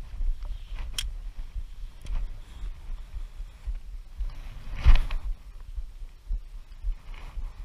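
Casting with a spinning rod and reel: a short swish of the rod and line just before five seconds in, the loudest sound, with a sharp click about a second in and a low uneven rumble on the microphone underneath.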